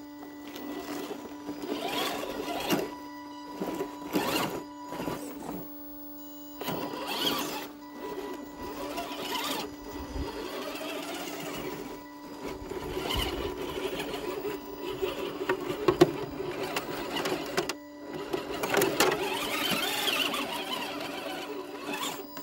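The electric motor and geared drivetrain of a radio-controlled rock crawler whining in short, uneven bursts as it creeps and climbs over rock, with scrapes and knocks of the tyres and chassis on stone. A faint steady tone runs underneath.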